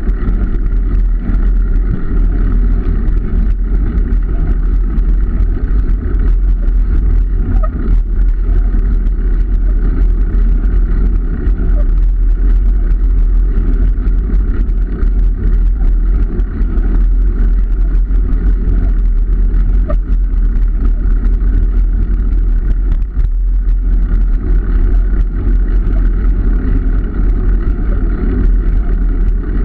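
Steady road and wind noise of travel along a road, strongest in the low end and unbroken throughout.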